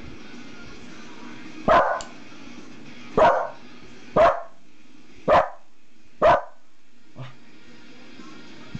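Corgi barking: five sharp, loud barks about a second apart, then one faint short bark.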